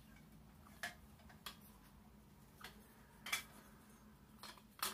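Green painted metal tubes of a shooting seat's gun rest knocking and clicking as they are handled and fitted together: a handful of short, light knocks at irregular spacing, the loudest just before the end.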